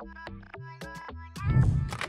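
Background music of short pitched notes over a steady bass line, with one loud noisy burst about one and a half seconds in.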